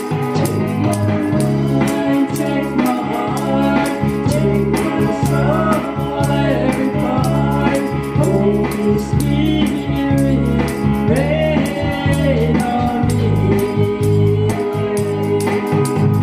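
A woman singing a gospel song with vibrato over a steady instrumental backing with a regular beat.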